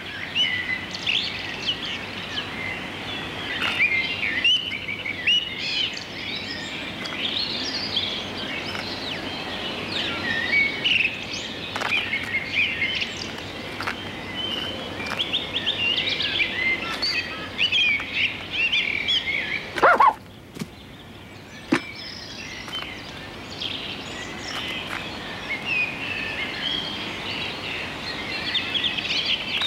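Small garden birds chirping and twittering continuously in a busy chorus. About twenty seconds in comes one brief, louder swooping sound.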